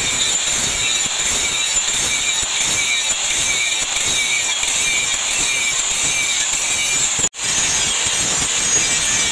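Angle grinder running under load, its disc grinding the face of a steel blade with a steady high-pitched whine. The sound breaks off for an instant about seven seconds in, then carries on.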